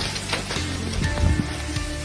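Background music with steady tones, laid over the hiss and patter of a hailstorm, hail and rain pelting down.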